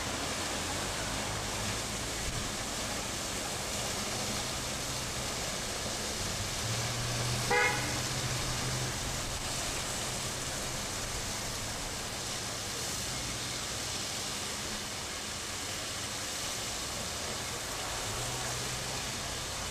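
Steady rushing noise of a fire hydrant's water jet mixed with street traffic. About seven and a half seconds in, a short horn toot sounds over it, with a vehicle engine humming around that moment and again near the end.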